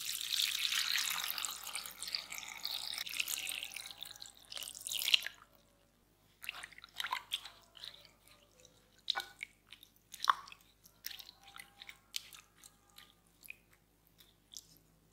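Water poured in a steady stream into a glass bowl of shredded potatoes for about five seconds, then stops. A wooden spoon then stirs the potatoes in the salted water, making scattered light splashes and clicks.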